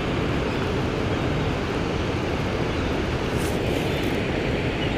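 Steady low rumble of churning water below a dam spillway, mixed with wind rumbling on the microphone.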